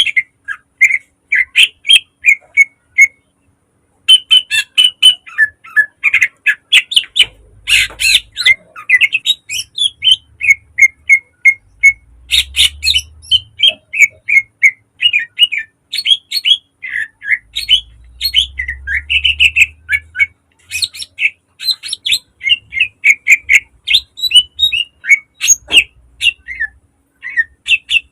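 Greater green leafbird (cucak ijo) singing a fast run of short, sharp chirps and whistles, with a brief pause a few seconds in.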